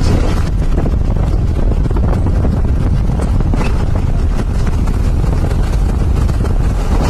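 Heavy wind buffeting the microphone of a moving Jeep, a steady loud low rumble over the drive's road and engine noise.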